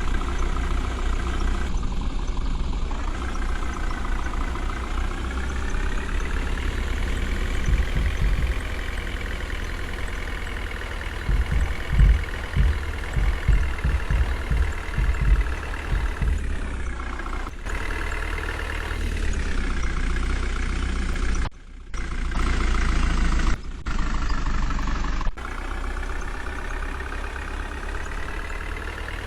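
Diesel engine of a JCB 3DX backhoe loader running under load, its pitch rising and falling as it revs, with a run of heavy low thumps about halfway through.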